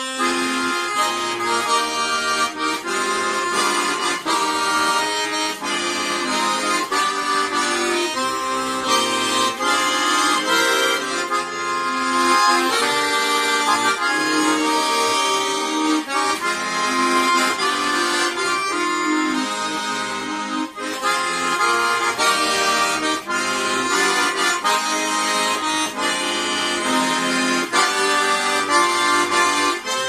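Accordion playing a tune, with melody and chords sounding together and no break.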